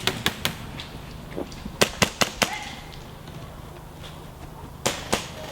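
Airsoft rifle firing single shots in quick bursts: about three sharp cracks at the start, four more about two seconds in, and two near the end.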